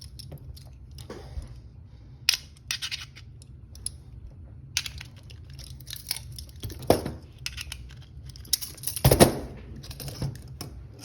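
Handcuffs being worked open by hand: scattered small metal clicks and rattles from the cuffs and tools, with a louder clatter about nine seconds in, over a steady low hum.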